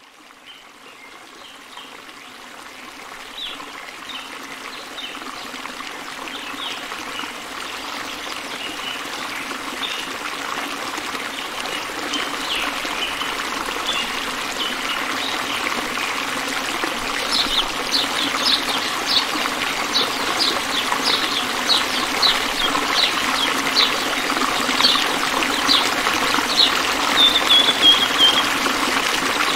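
Water trickling and splashing in a small homemade tabletop fountain, with many quick plinking drops. It grows steadily louder over the first half, then runs on evenly.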